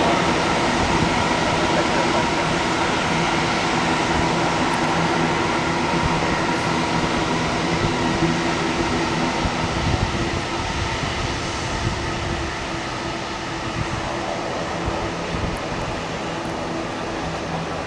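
Boeing 747's four jet engines running at taxi power: a steady turbine whine over a low rumble that slowly fades.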